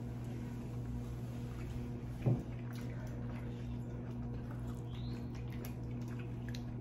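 Quiet eating and drinking sounds: scattered faint mouth clicks and wooden-spoon sounds, with one soft knock about two seconds in, over a steady low hum.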